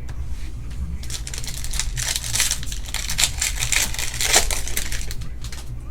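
Crinkling and rustling of trading-card packaging and cards being handled, a dense crackly run that starts about a second in and stops shortly before the end.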